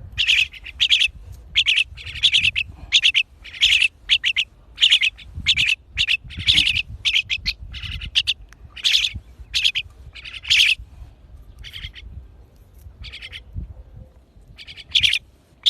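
Crested myna giving short, repeated chirping calls, about two a second, falling to a few faint calls for several seconds near the end.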